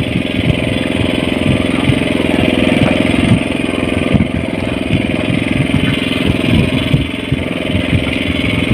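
A small engine aboard a fishing boat running steadily.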